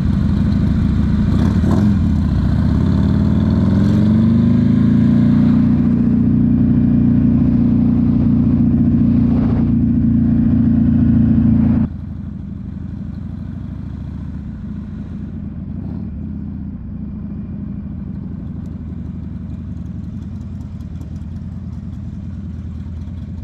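Motorcycle engine under way, its pitch rising as it accelerates over the first few seconds and then holding steady. About halfway through, the sound drops suddenly to a quieter, lower, steady engine note.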